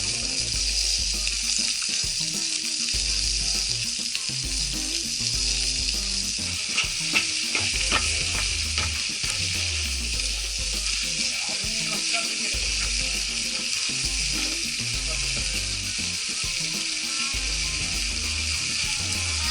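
Food sizzling steadily in a pan over a wood fire, with a few sharp pops about seven to eight seconds in. Low background music runs underneath.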